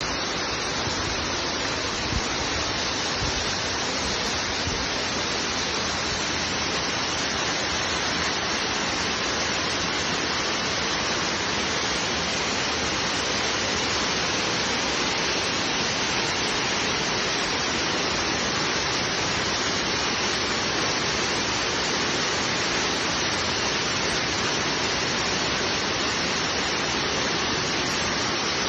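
Waterfall rushing steadily, a dense even roar of falling water, with a brief low knock about two seconds in.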